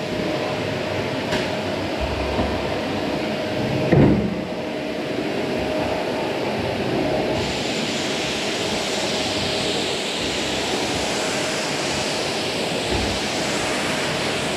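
Vacuum cleaner running steadily, with a knock about four seconds in. About halfway through the sound turns brighter and hissier.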